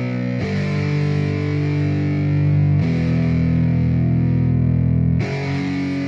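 Background music with no vocals: sustained distorted electric guitar chords, changing about every two and a half seconds.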